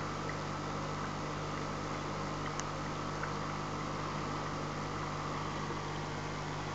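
Aquarium pump and aeration running steadily: a low hum under a constant hiss of water and fine bubbles, with a couple of faint ticks near the middle.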